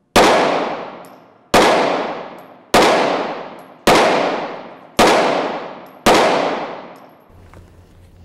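Six pistol shots from a Smith & Wesson M&P Shield 2.0 with a built-in laser, fired one at a time at a steady pace about a second apart. Each shot is sharp and echoes away for about a second.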